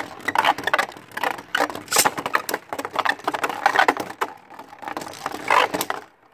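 Two Beyblade Burst spinning tops whirring and scraping across a plastic battle stadium, with many sharp clacks as they knock into each other and the walls.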